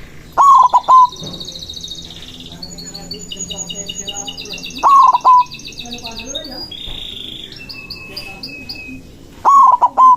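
White zebra dove (perkutut) singing its cooing song three times, about four and a half seconds apart. Each phrase is a longer note followed by a quick run of short notes. Smaller birds chirp and trill at a high pitch between the phrases.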